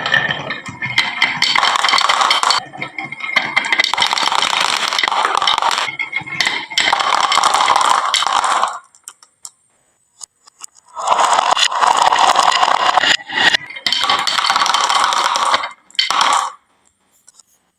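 Glass marbles rolling and clattering down a wooden marble run, a dense stream of clicks and clinks that stops twice: once for about two seconds around nine seconds in and again near the end.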